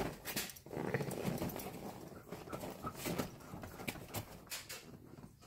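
Two Airedale terriers scuffling on a car's back seat: paws scrabbling and thumping on the quilted seat cover, with irregular knocks and clicks.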